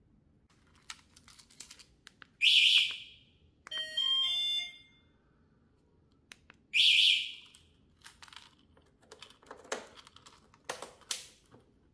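Motorcycle anti-theft alarm answering presses of its remote key fob: two short loud chirps a few seconds apart, with a brief tune of stepped electronic beeps after the first. Near the end come a series of light clicks as the ignition key and switches are worked.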